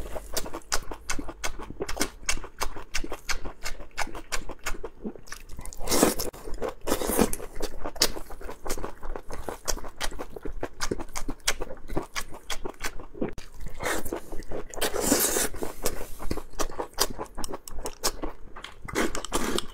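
Close-miked eating: a man chewing mouthfuls of a dressed leafy-greens salad with peanuts, a dense run of wet mouth clicks and crunches, louder near six seconds and again around fifteen seconds in.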